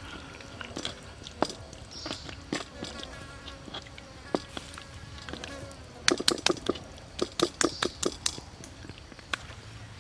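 Hands kneading and rubbing seasoning into raw pork ribs on a wooden board: sticky wet smacks and squelches, coming thick and fast about six to eight seconds in. A fly buzzes faintly between about two and five seconds in.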